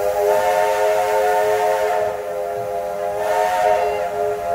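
Steam locomotive's chime whistle blowing one long blast, several notes sounding together as a chord, over a hiss of steam. The whistle eases a little about two seconds in, then swells again near the end.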